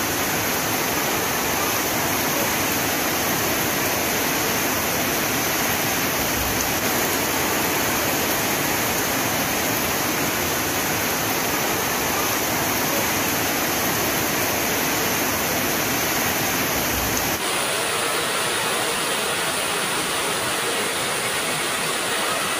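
Heavy rain falling as a dense, steady hiss. About seventeen seconds in, the sound abruptly changes tone, with less low rumble.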